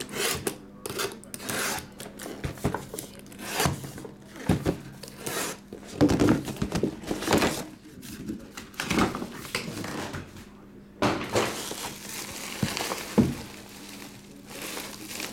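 A cardboard trading-card box being handled: irregular thunks and scrapes, with plastic bubble-wrap packing rustling.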